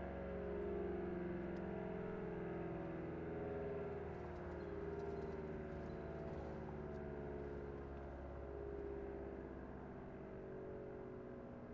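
ACA Allertor 125 rotating siren sounding its dual-tone chord, slowly fading and wavering as the horns turn, consistent with the siren winding down at the end of its cycle.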